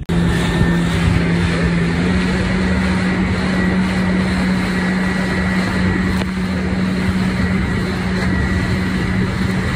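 Yamaha WaveRunner jet ski engine running steadily at speed, a loud drone over the rush of water. Its pitch steps up slightly about two seconds in as the throttle opens.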